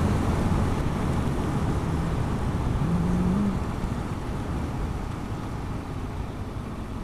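Motorcycle engine running with road and wind noise on a bike-mounted camera, the sound easing gradually as the bike slows to turn into a lay-by.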